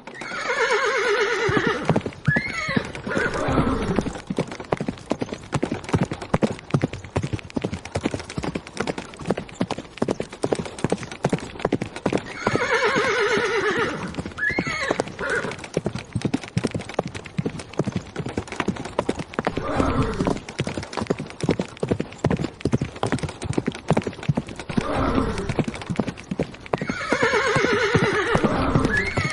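Horses galloping, a continuous rapid drumming of hoofbeats. A horse whinnies three times: near the start, about halfway through and near the end. Shorter, lower horse calls come twice in between.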